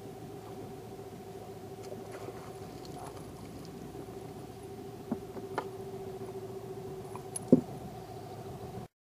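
Knocks of a landing net and a thrashing northern pike against a wooden boat as the fish is netted and lifted aboard, with one louder thump about seven and a half seconds in, over a steady hum.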